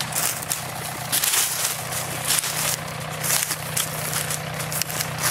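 An engine idling steadily with a low, even hum, overlaid by repeated short rustling, crackling noises.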